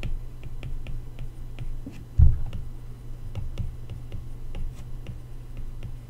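Stylus tip tapping and ticking on an iPad's glass screen during handwriting: a scatter of light, irregular clicks, with one louder low thump a little over two seconds in, over a steady low hum.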